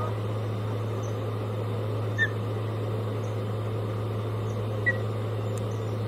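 Steady low electrical hum and outdoor background noise on a nest webcam's microphone, with two short high bird chirps, about two seconds and five seconds in.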